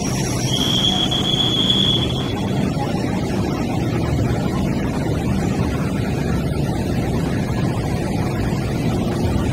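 MTR Light Rail vehicle rolling past at close range, a steady low rumble of wheels on rail and traction equipment. A thin high tone holds for about two seconds near the start.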